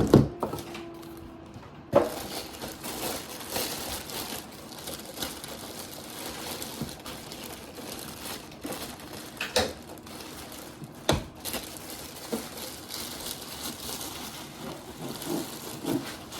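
Packaging being handled while unpacking a sewing machine: continuous rustling and crinkling, with a few sharp knocks. The loudest knocks come at the very start and about 2 and 11 seconds in.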